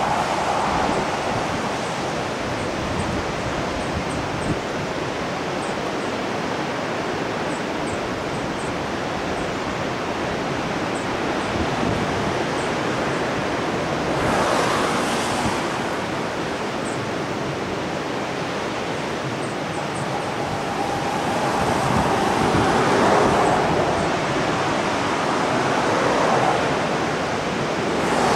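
Ocean surf breaking along a beach, a steady rushing noise mixed with wind on the microphone, swelling louder about halfway through and again near the end.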